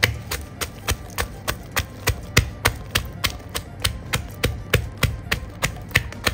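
Pestle pounding garlic in a mortar: a steady run of dull strikes, about three to four a second, that stops near the end.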